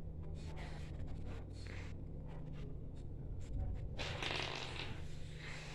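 Rustling and rubbing handling noises over a steady low hum, with the loudest rustle about four seconds in.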